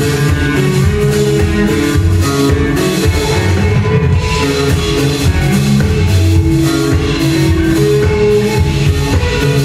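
Live rock band playing: electric guitars over bass and a drum kit, heard from within the audience.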